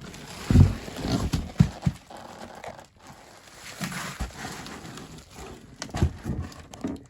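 Irregular thumps and knocks with rustling from a large-scale RC car and its parts being handled, with the loudest knocks about half a second in, near the middle and near the end.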